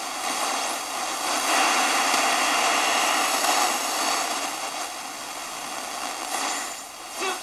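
Static hiss from a kit-built AM/FM radio's small speaker as it is tuned across the band between stations, swelling louder for a few seconds about a second and a half in, with a short crackle near the end.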